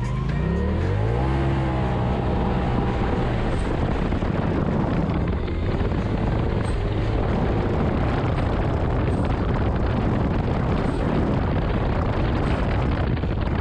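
Off-road vehicle's engine revving up about a second in, then running hard under load with a steady, noisy rush over it.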